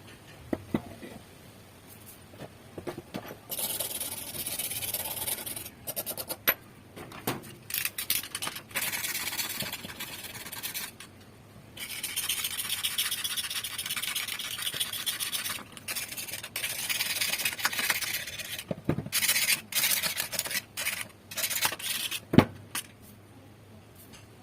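Rust being scraped and abraded off the metal of an old M6 survival rifle/shotgun. It comes in several stretches of steady rasping a few seconds each, with short pauses and light clicks between them. A sharp knock near the end is the loudest sound.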